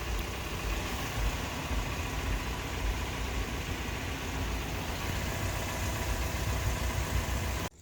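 2019 Toyota RAV4's engine idling steadily, a low even rumble; the sound cuts off suddenly just before the end.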